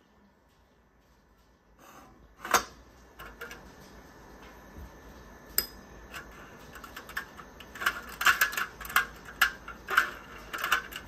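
A thin metal rod tapping and prodding a laser-cut sunburst piece in a thin metal sheet to knock it free: scattered metallic clicks and clinks starting about two seconds in, one sharp one early, then quicker and denser over the last few seconds.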